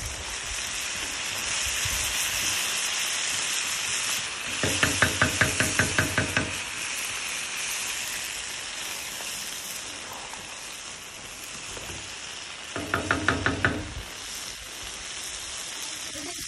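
Chicken karahi sizzling in a large black pan, a steady hiss, broken by two runs of quick knocks, about five a second, as a wooden spatula strikes the pan while stirring: a longer run about five seconds in and a shorter one about thirteen seconds in.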